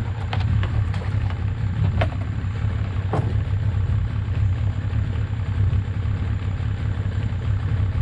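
A steady low rumble, with a few light clinks and clicks in the first few seconds as the wire crab trap is handled.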